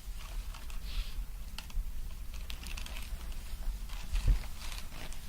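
Scattered light clicks and rustling, with one dull thump about four seconds in.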